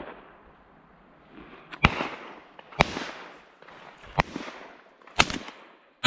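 Five shotgun shots about a second apart, each a sharp report trailing off in echo; the last and loudest, right at the end, comes from a Beretta A391 Xtrema2 semi-automatic 12-gauge.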